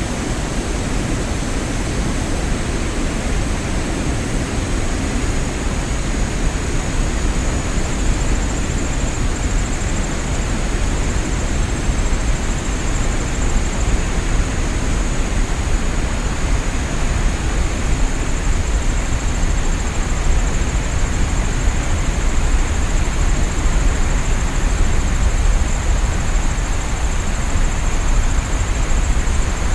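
Waterfall rushing steadily, a dense even roar with a lot of low rumble and a thin constant high hiss on top.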